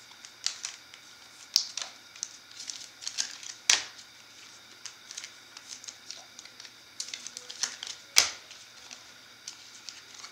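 Bowman Chrome baseball cards being flipped through and set down on stacks by hand: a run of light clicks and slaps, with two sharper snaps at about four and eight seconds in.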